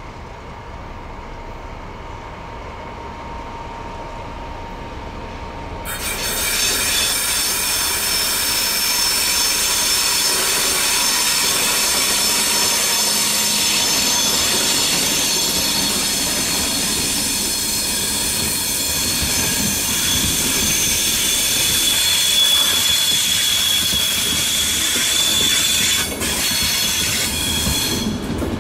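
PESA Link railcar's wheels squealing on the rails. A quieter rumble comes first, then about six seconds in a loud, high squeal of several steady tones sets in and holds, with some rail clatter under it.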